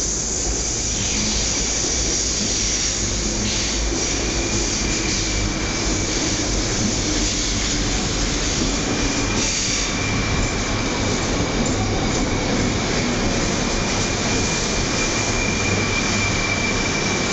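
A 200 Series Shinkansen train pulling into the platform and rolling slowly past, a steady rumble of wheels and running gear. From about six seconds in, a thin high steady squeal sounds above it as the train slows.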